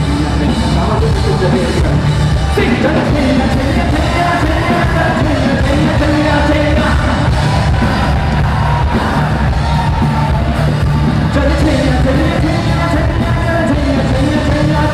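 Loud amplified live song: a singer's voice over a steady bass-heavy backing track, with some shouting from the crowd.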